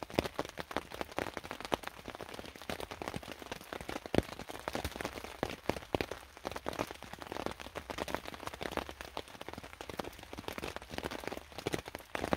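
Cold rain dripping and pattering in irregular drops, some hitting sharp and close, with one louder drop about four seconds in.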